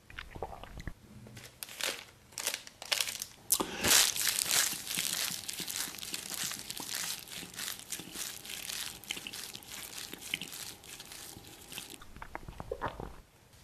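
Crumpled plastic wrapper and tissue crinkling as they are squeezed and handled: a dense crackling that is loudest about four seconds in and stops about twelve seconds in, with a few faint ticks after.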